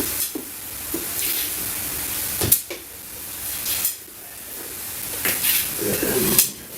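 Kitchen handling noise: a steady hiss with rustling and clatter, and sharp knocks about two and a half and six and a half seconds in.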